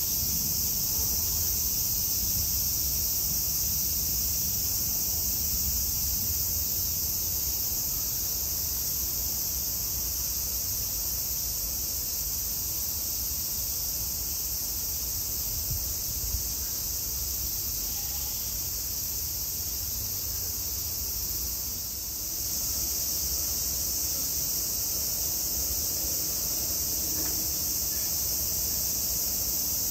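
A steady, high-pitched chorus of insects that runs without a break, dipping briefly about 22 seconds in.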